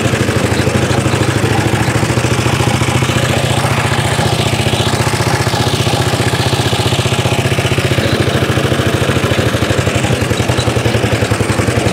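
Petrol engine of a 1930s Dennis Z-type 30-inch cylinder lawn mower running steadily with no exhaust fitted, a fast, even firing beat, as the mower drives itself forward with its cutting cylinder engaged.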